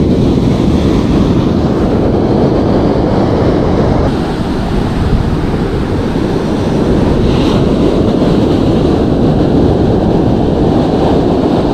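Surf washing onto a beach with steady wind noise on the microphone.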